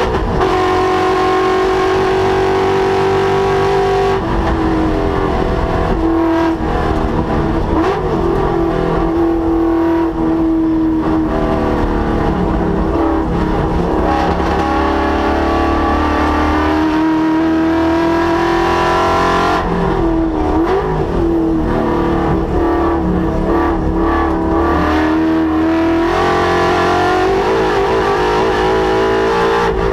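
Ford Mustang's Coyote V8 driven hard on a race track, its engine note rising and falling with the revs. The pitch drops sharply about four seconds in, again around twenty seconds and around twenty-six seconds, then climbs again each time.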